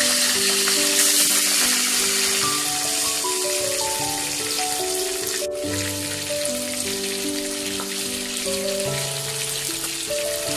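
Pieces of climbing perch shallow-frying in hot oil in a pan, a steady dense sizzle with a momentary break about halfway. Background music with a simple melody of single held notes plays over it.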